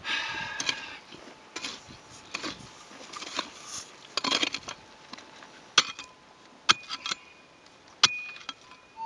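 Long-handled prospecting pick digging into stony, gravelly ground. The first strokes chop and scrape through loose dirt. Later come about four sharp strikes on stone, each with a short metallic ring from the pick head.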